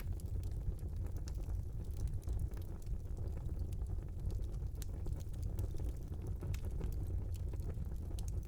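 Fire burning in a small fireplace: a steady low rumble of flame with frequent small crackles and pops scattered throughout.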